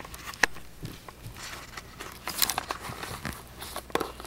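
Handling noise from a hand-held camera being moved: scattered sharp clicks and knocks with brief rustling, a louder rustle about midway.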